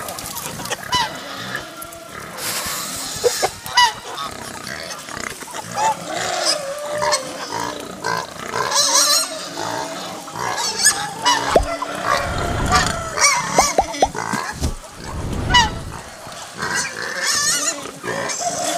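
Hungry chickens and other poultry calling over one another as they crowd a feed trough, mixed with pigs, in a steady jumble of short calls with a few high shrill squeals.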